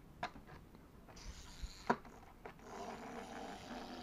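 Small plastic clockwork wind-up motor of a toy car, whirring steadily as the released car runs along a table. A few sharp clicks come first as the car is handled and set down.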